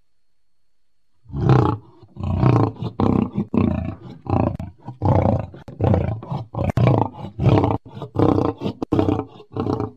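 A lion roaring and growling in a long run of short, rough bursts, about one or two a second, starting after a brief quiet opening.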